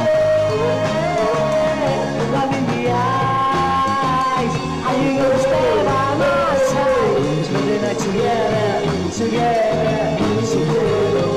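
Rock song with a singer singing over the band's accompaniment.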